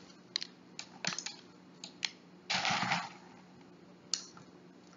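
Small gravel pebbles dropped by hand into a coconut shell around a cactus, clicking irregularly as they land, with a brief rustling scrape a little past halfway.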